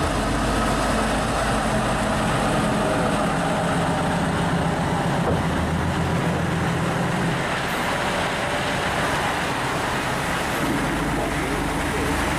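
Diesel engine of a heavy-haulage prime mover running steadily as the truck slowly pulls an oversize low-loader past. Tyre and road noise sit under the engine hum.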